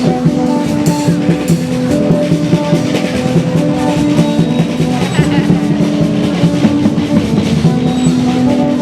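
Parade street band playing: held pitched notes over steady, busy drumming.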